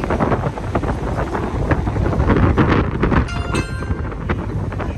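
Wind buffeting the microphone over a steady low rumble, with a brief high electronic-sounding tone about three and a half seconds in.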